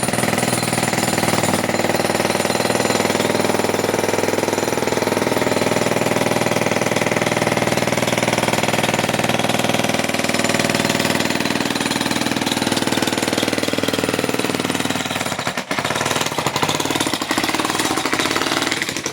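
A jackhammer hammering continuously in a loud, rapid, steady rattle, with a brief break about fifteen seconds in. It stops at the end.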